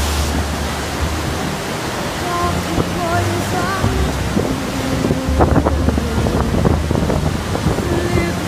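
Steady rushing of a flooded, muddy river in rapids, under background music of held, wavering tones with a few sharper notes about halfway through.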